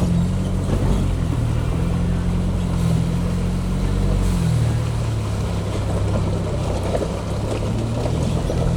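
Ford Bronco engine running steadily as it drives the off-road trail, with a low hum whose pitch drops a step about four seconds in.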